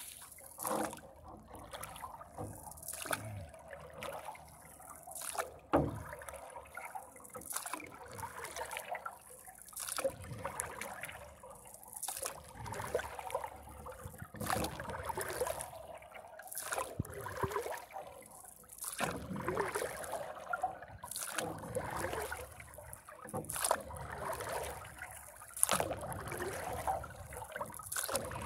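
Paddle strokes in lake water from a paddleboard: a splash as the blade dips in roughly every two seconds, with water trickling and sloshing around the board between strokes.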